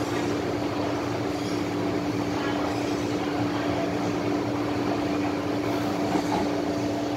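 MTR M-Train car interior with the train in motion: rumbling wheel and running noise under a steady, loud howl held at one pitch. This is the 'ghost howl' (鬼叫) that this set, A273/A258, is known for.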